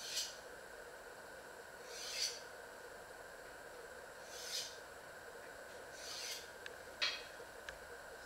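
Short rasping scrapes, four of them about two seconds apart, then a sharp click, over a steady faint hum.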